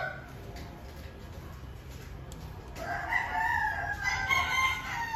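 A cat yowling during mating: one long, wavering call that begins about three seconds in and is still going at the end.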